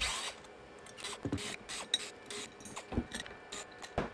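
Irregular small clicks and scrapes of a screwdriver and metal parts as the back of a horn compression driver is unscrewed to replace its blown diaphragm coil.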